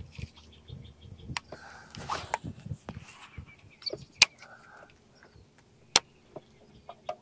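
A few sharp clicks, the two loudest about four and six seconds in, and soft knocks from a fishing rod and reel being worked in a boat, with faint bird calls behind.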